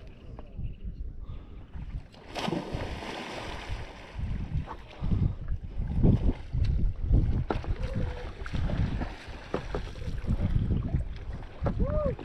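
A stand-up paddleboard paddle dipping and splashing in lake water, with a burst of splashing hiss from about two to four seconds in. Wind buffets the microphone throughout.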